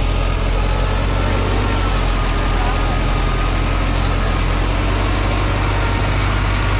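Sonalika DI 750 III tractor's diesel engine running steadily under heavy load, hauling a fully loaded trolley up a steep climb.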